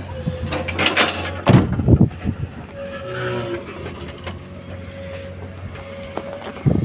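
Tata Prima tipper's diesel engine idling, heard from inside the cab, with heavy thuds and rumbling about one and a half to two seconds in as the excavator drops earth and rock into the tipper body. A faint steady tone runs through the middle.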